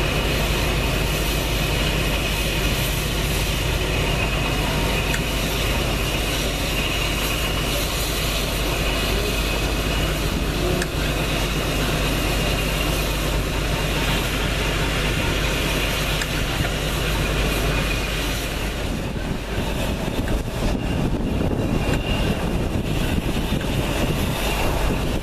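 A diesel locomotive engine idling in a railway yard: a steady low rumble with a thin high whine above it. About eighteen seconds in, the rumble becomes uneven.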